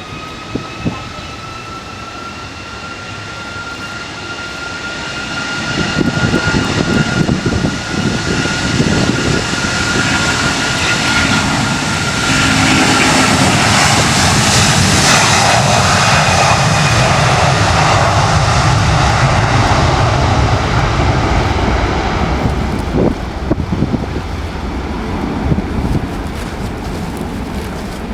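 Jet airliner passing: a whine of engine tones slowly rising in pitch, building to a loud jet roar about halfway through, then slowly fading, with low rumble underneath.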